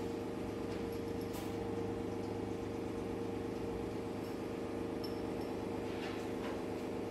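Steady mechanical hum holding a few constant tones, with a few faint footfalls on a concrete floor.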